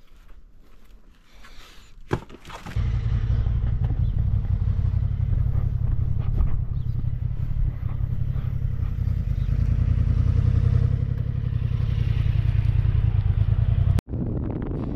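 Motorcycle engine starting about two seconds in, after a click, then running steadily with a deep rumble. The sound stops abruptly near the end.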